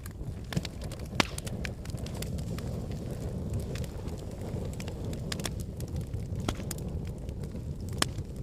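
Wood fire burning in a fireplace: a steady low rumble of flames with frequent sharp crackles and pops, the loudest about a second in and again near the end.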